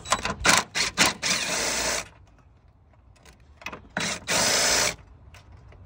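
Cordless DeWalt power tool running a torque engine mount bolt off, the bolt already broken loose. A few short bursts lead into a steady run of about a second, then a pause, then a second steady run of just under a second.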